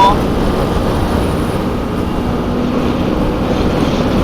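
Heavy wind rushing over the microphone of a motorcycle riding at road speed in strong crosswinds, with the motorcycle's engine running steadily underneath; a faint steady engine note shows in the middle.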